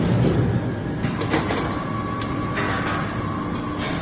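250-ton hot forging press running: a steady machine rumble with several sharp metallic clanks, and a steady whine that comes in about a second in and stops near the end.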